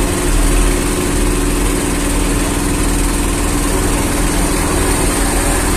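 A fire truck's engine running steadily close by: a continuous, even drone.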